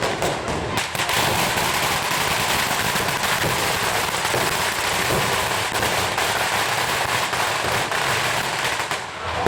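Firecrackers crackling in a dense, unbroken rapid stream of small sharp bangs.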